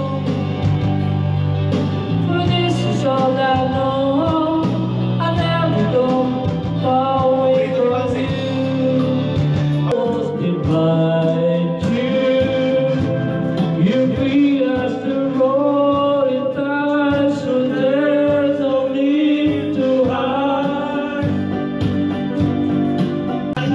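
A song playing through a karaoke system: a voice singing over a band backing with guitar and steady bass, without a break.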